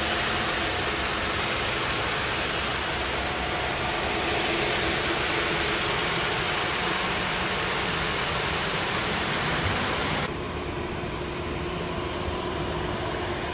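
Toyota Camry's 2.5-litre four-cylinder engine idling steadily. About ten seconds in, the higher hiss drops away abruptly and the sound goes quieter.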